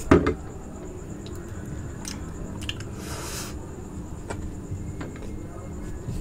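Close-miked biting and chewing of raw aloe vera leaf: a sharp bite right at the start, then soft wet chewing with scattered small clicks. A brief hiss comes about three seconds in.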